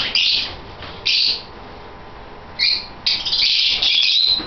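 A flock of masked lovebirds calling: short bursts of high-pitched chirps three times, then a dense run of overlapping chirps from about three seconds in.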